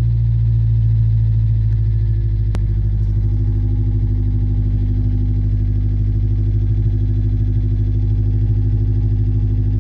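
Straight-piped Ford Ranger idling steadily on a cold morning start, its open-header exhaust heard from inside the cab. A single short click comes about two and a half seconds in.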